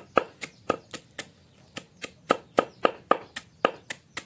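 Heavy knife chopping green stalks on a thick wooden chopping block: steady sharp knocks, about four a second, with a brief pause about a second and a half in.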